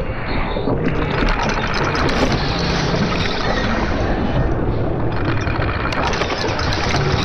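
Designed steampunk machinery sound effect: a machine running steadily, a dense clattering mechanical noise with many small ticks over a low engine-like hum.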